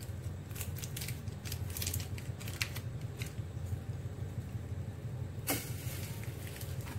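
Stainless steel pot heating on a gas stove burner: a steady low hum with scattered small ticks and pops in the first few seconds, and a single louder click about five and a half seconds in.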